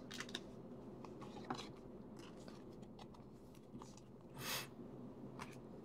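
Faint handling of a trading card, with scattered light clicks and one short soft swish about four and a half seconds in as the card is slid into a plastic sleeve.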